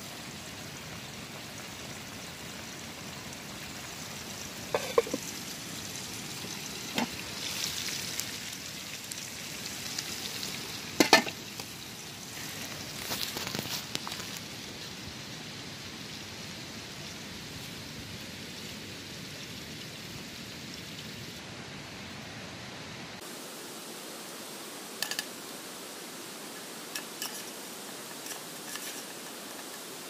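Steady rushing hiss of a nearby stream. A few short, sharp knocks and clinks of metal cooking pots and lids come over it, the loudest about eleven seconds in.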